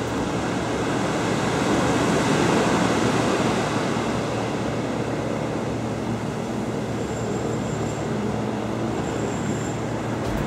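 Steady roar of surf breaking on a sandy beach, swelling slightly a couple of seconds in, with a faint high tone sounding twice in the second half.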